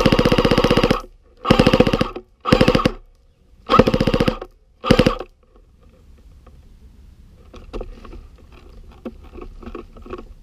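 Airsoft gun firing full-auto in five quick bursts of rapid, evenly spaced shots, the first about a second long, followed by fainter scattered clicks.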